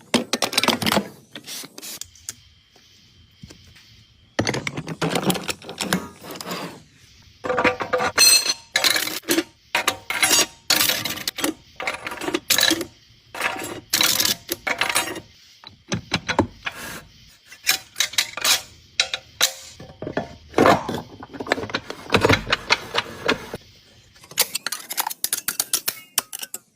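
Metal tools and engine parts clinking, tapping and scraping in quick, irregular strikes, some with a brief metallic ring, during an oil pump repair.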